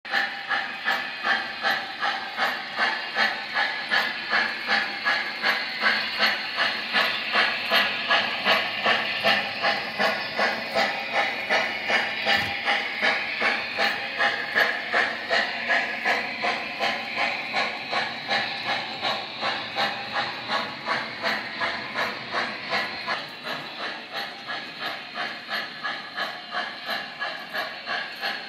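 O scale model steam locomotive's onboard sound system playing steady steam chuffing, an even hissing rhythm of about three chuffs a second, which drops somewhat in level about three-quarters of the way through.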